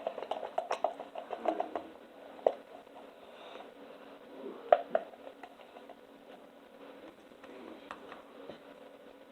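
Slime being worked by hand, giving small wet clicks and pops: a quick run of them in the first couple of seconds, then a few single louder pops, then only faint ones.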